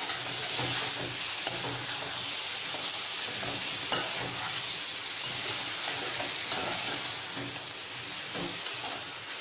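Marinated chicken pieces sizzling as they fry in a metal pot, with a metal spoon stirring and scraping the pot now and then. The chicken is cooking down in its own liquid until the water is gone.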